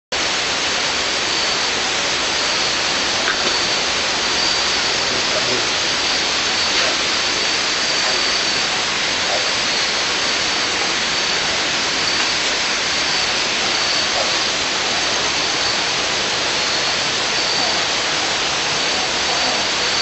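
Steady night rainforest ambience: a dense, even hiss with a thin, high, steady whine of night insects over it.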